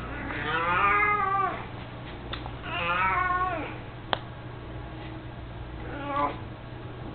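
An elderly domestic cat meowing: two long drawn-out meows, then a short one near the end. A sharp click comes just after the second meow.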